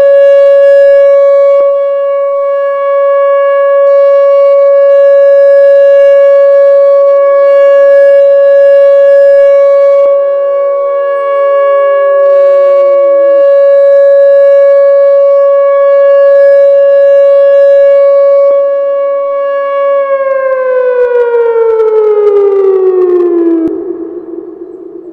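Whelen warning siren sounding a loud steady Alert tone, then winding down: about 20 seconds in its pitch glides steadily lower and the sound dies away near the end.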